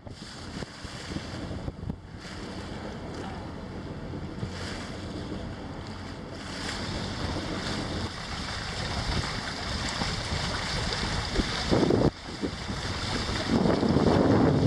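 Water rushing and splashing past the hull and outrigger of a small sailing proa under way, with wind buffeting the microphone. The wash grows louder towards the end, with heavier surges of water.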